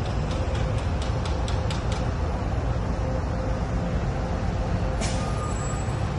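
City street traffic with buses going by: a steady low rumble, a quick run of light clicks in the first two seconds, and a sudden hiss of bus air brakes about five seconds in.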